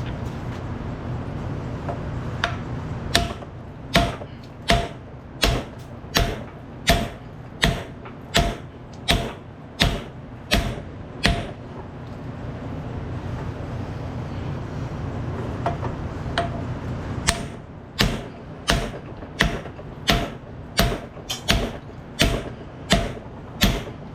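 Hammer striking steel in two runs of steady blows, about one every 0.7 seconds, each with a short metallic ring. It is driving in the gland collar of a hydraulic cylinder to reach its retaining clip. A steady low hum runs underneath.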